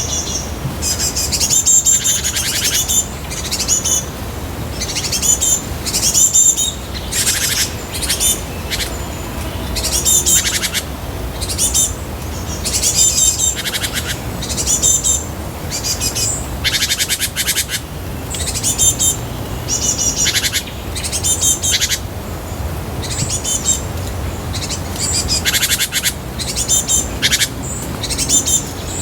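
Bird calls: many short, high-pitched chirps and chattering notes repeated in quick succession.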